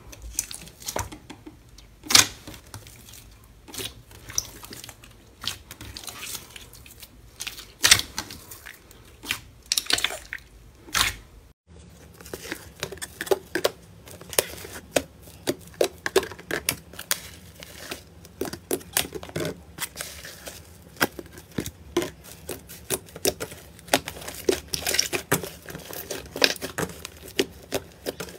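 Hands pressing and squishing a glossy slime, giving scattered sharp pops and clicks. After an abrupt cut about twelve seconds in, a thick, crumbly 'tofu-dregs' slime is kneaded and mixed with a pink slime, giving a dense run of crackling, tearing clicks.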